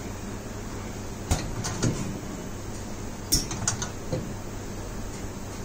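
Socket endurance tester cycling a mains plug in and out of a spike-guard socket: a sharp clack about a second in and another about two seconds later, each followed by a few lighter clicks and rattles from the plug pins and clamp carriage, over a steady low hum.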